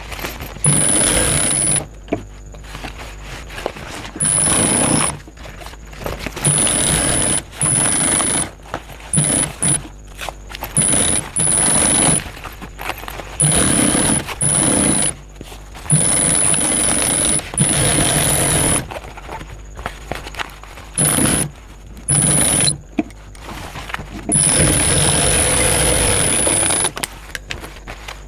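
Primex high-speed single-needle industrial sewing machine stitching in short runs, starting and stopping about every one to three seconds as heavy nylon bag fabric is fed through, with a high whine during each run. The longest run comes near the end.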